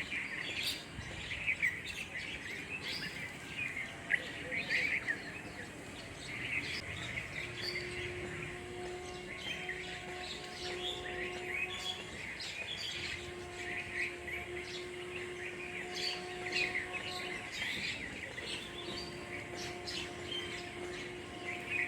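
A crowd of small birds chirping and twittering continuously, many short calls overlapping. A steady low hum comes in about a third of the way through and carries on underneath, with short breaks.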